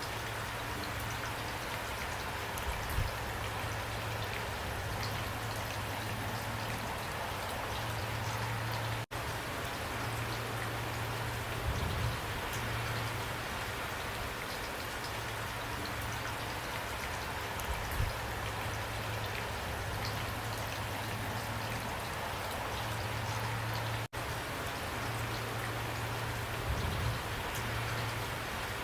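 Steady rain falling, a continuous hiss of drops with a few soft low thuds now and then. The sound drops out for an instant twice, about fifteen seconds apart.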